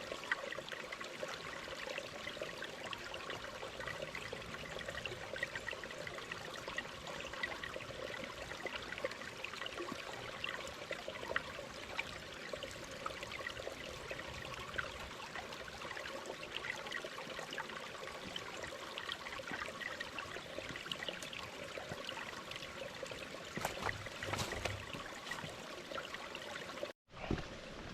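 Small rocky creek running, a steady trickling babble of water over and under stones. It breaks off for an instant near the end.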